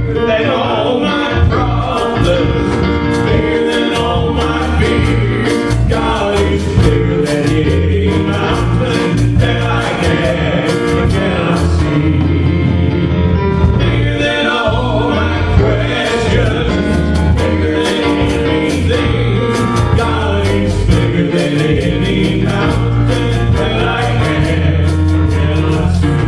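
Gospel worship music: a band with strong bass and steady drum hits playing under sung vocals.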